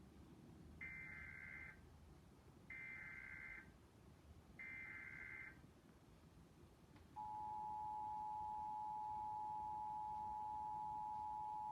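Emergency Alert System test signal: three short, screechy SAME header data bursts about a second apart, then, about seven seconds in, the steady two-tone EAS attention signal starts and holds.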